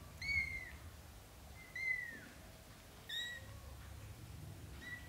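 Young British shorthair kittens mewing: four thin, high-pitched mews about a second apart, the second bending down in pitch at its end and the last one short, near the end.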